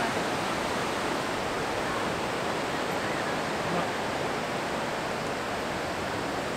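Ocean surf breaking and washing onto a sandy beach: a steady, even rush.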